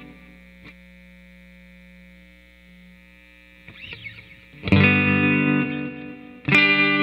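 Electric guitar fitted with a hand-wound P90 pickup, played clean of speech: a strummed chord fades out, a little string noise follows, then two new chords are strummed sharply, the first about two-thirds of the way through and the second near the end.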